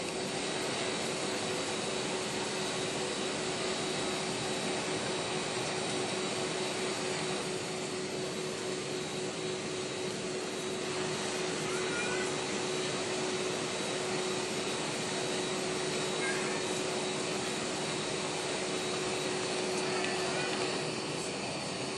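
Steady rushing noise inside a jet airliner's cabin, with the engines running before departure. A steady low hum and a faint high whine sit over it.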